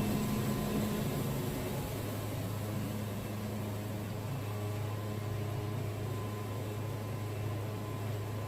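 Wood-Mizer band sawmill running steadily as its band blade saws through a log, a steady low drone. The blade is making a bad racket while still sawing well.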